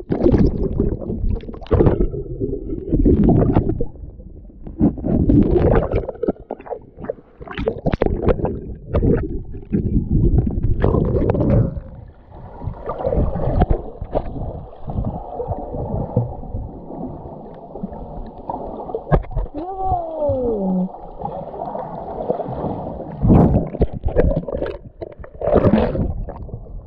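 Water gurgling and sloshing around a camera dipped into the sea and held underwater while snorkeling, heard muffled as irregular surges and rumbles. About two-thirds of the way through, a brief sound slides down in pitch.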